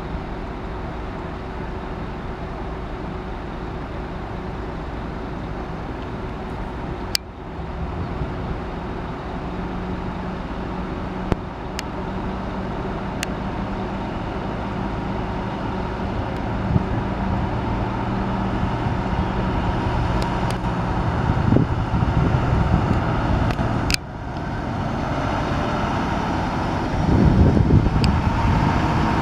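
Intercity coach's diesel engine pulling away and driving toward the listener, its steady engine note growing louder until it passes close by near the end.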